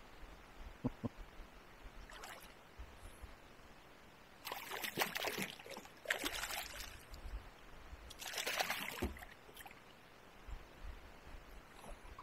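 Kayak paddle dipping and splashing in lake water, three strokes about two seconds apart, with a couple of light knocks about a second in.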